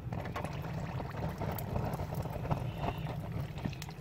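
Red-hot steel axe head, cut from an old circular saw blade, being quenched in water to harden it: sizzling and bubbling with many small crackles over a steady low rumble.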